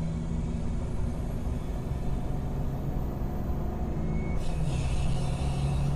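2002 Ford F-250's 7.3-litre Power Stroke V8 turbodiesel running as the truck is driven on throttle, with a steady engine note. A hiss joins it about four and a half seconds in.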